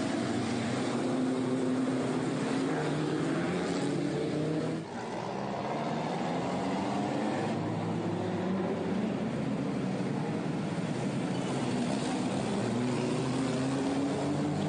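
Engines of several pre-war racing cars accelerating past, their pitch rising repeatedly as they pull away, with a brief dip in loudness about five seconds in.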